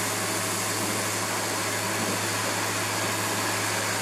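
Kärcher electric pressure washer running steadily: the pump motor's even hum under the hiss of the high-pressure water jet spraying onto a plastic sun lounger.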